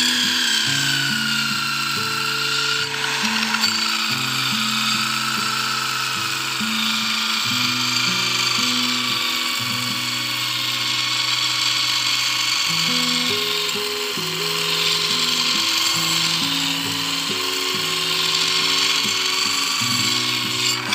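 Electric drill spinning a flat sharpening disc against an electric planer knife held in a jig: a steady motor whine over a grinding hiss, its pitch sagging a little in the first couple of seconds and then holding steady.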